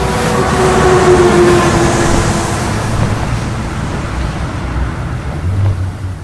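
Heavy vehicle passing, with a low rumble and a sustained tone that sinks slightly in pitch over the first two or three seconds and then fades.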